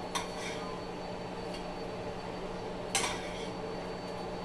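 Metal spatula clinking against a frying pan and plate while small pancakes are lifted onto the plate: two sharp clinks about three seconds apart, over a steady low hum.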